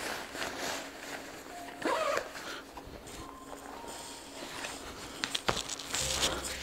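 Montec Fawk ski bibs' fabric rustling and swishing as a person steps into them and pulls them up, with a short squeaky sound about two seconds in and a few sharp clicks near the end as the shoulder straps are pulled on.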